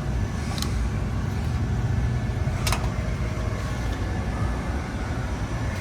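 Steady low hum of HVAC machinery running, with two short sharp clicks, one about half a second in and a louder one near three seconds in.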